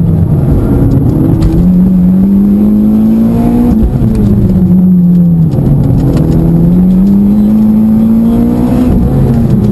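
Mitsubishi Lancer Evolution X's turbocharged two-litre four-cylinder heard from inside the cabin, its note climbing steadily under acceleration, dropping away about four seconds in, then climbing again and dropping near the end.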